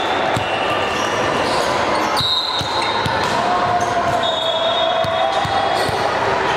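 Busy multi-court gym din: volleyballs being hit and bouncing on hardwood courts, players and spectators chattering, and a few high squeaks, all echoing in the large hall.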